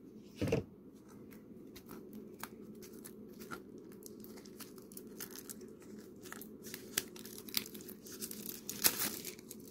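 Cellophane shrink wrap being torn and peeled off a deck of playing cards, crinkling with many sharp crackles, the loudest just before the end. A dull thump about half a second in.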